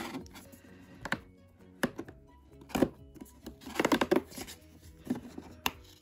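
Cardboard advent calendar door being pried open and the small boxed item inside pulled out: scattered taps, scrapes and knocks of cardboard, busiest about four seconds in. Soft background music plays underneath.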